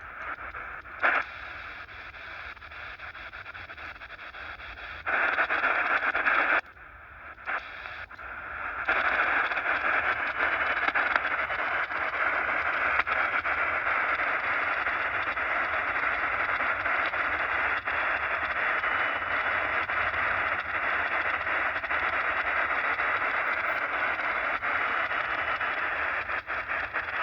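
Shortwave radio receiver static while tuning between stations. A click about a second in, shifts in the noise and a brief drop-out in the first nine seconds, then a steady hiss with no station coming through.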